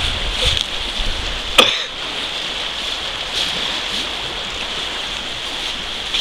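Shallow rocky stream rapids rushing steadily, with one sharp click about one and a half seconds in.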